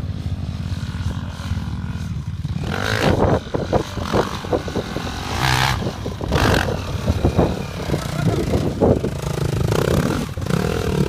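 Enduro dirt bike engine revving in surges as it climbs a steep dirt hill, with a few short rushing bursts over it.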